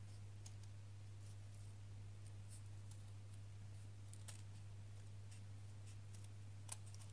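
Faint, sparse snips and clicks of scissors cutting fabric, the clearest two a little past the middle and near the end, over a steady low hum.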